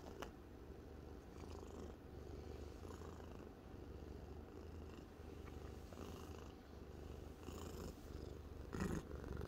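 Domestic cat purring steadily while being stroked, a low continuous rumble. A brief louder noise comes near the end.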